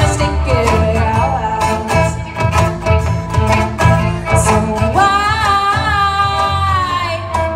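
Live band performing a song with singing over guitar, bass and drums; about five seconds in, the singer holds one long wavering note for a couple of seconds.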